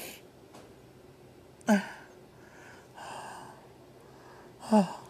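A man crying quietly: two short breathy sobs with a falling pitch, one a little under two seconds in and one near the end, with a sniff between them.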